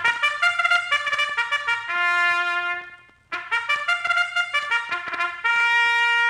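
Trumpet playing an opening fanfare in two phrases of quick notes. Each phrase ends on a held note, the second held longest.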